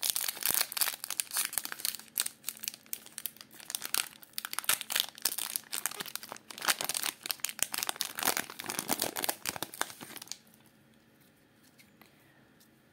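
Foil Yu-Gi-Oh booster pack wrapper being torn open and crinkled as the cards are pulled out: dense crackling and rustling that stops about ten seconds in, leaving near quiet.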